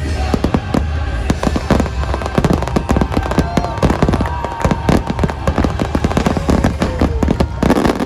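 A dense, rapid barrage of firework bursts, bang after bang, over the show's music soundtrack with a steady deep bass.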